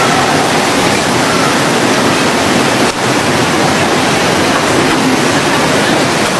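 Tsunami floodwater rushing and churning through a hotel's grounds: a loud, steady wash of water noise.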